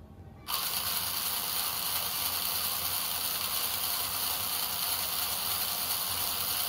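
Small 300 RPM DC motor driving its opened three-stage spur-gear reduction down to 60 RPM, switched on about half a second in and running with a steady, high gear noise from the exposed meshing gears.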